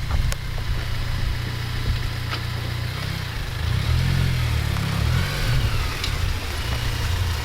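Honda Civic Si's K20 four-cylinder with an aftermarket Invidia N1 catback and downpipe, running at low revs as the car is driven off slowly. The exhaust drone swells for a couple of seconds in the middle and then settles back.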